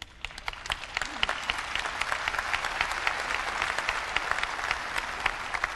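Audience applauding: the clapping swells quickly, holds steady, then thins out near the end.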